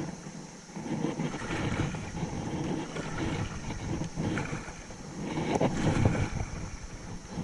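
Wind buffeting the microphone in uneven low gusts over the steady rush of moving creek water while out on a kayak.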